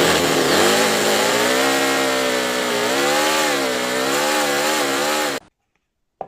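A motor or engine running with a loud, buzzing tone whose pitch wavers slowly up and down, cutting off suddenly about five seconds in; a short click follows near the end.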